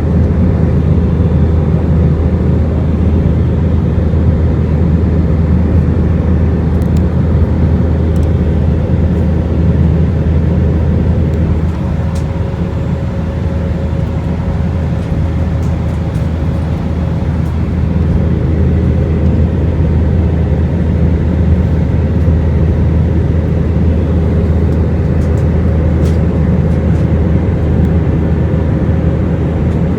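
Steady cabin noise inside an Airbus A319, engines running with a low hum, dipping slightly for a few seconds partway through.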